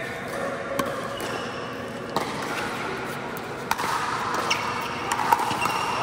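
Pickleball rally: sharp pops of paddles striking the hollow plastic ball, four of them about a second and a half apart.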